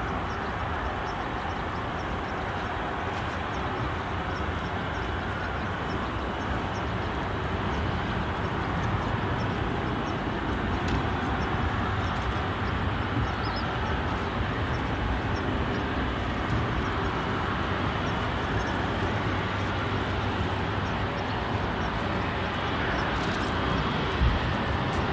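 Jet airliner engines heard from a distance at an airport: a steady rushing rumble that grows slightly louder about eight seconds in.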